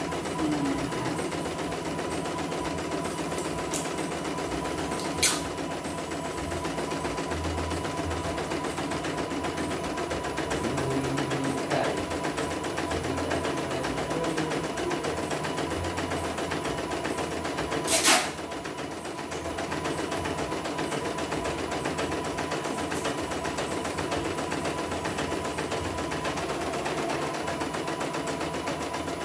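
CNY E900 portable embroidery machine stitching steadily. A sharp click comes about five seconds in, and a louder, brief knock about eighteen seconds in.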